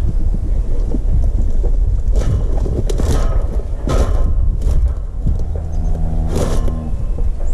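Wind buffeting the microphone with a steady low rumble, broken by several short rattling bursts two to five seconds in and a drawn-out pitched call or tone lasting about a second and a half, starting about five seconds in.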